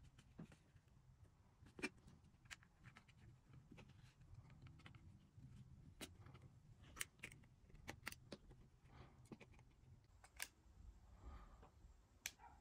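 Faint scattered clicks and taps of small tools on a phone: a plastic opening pick and a suction cup's metal ring knocking against an iPhone 8's screen and frame as the lifted screen is worked back into place.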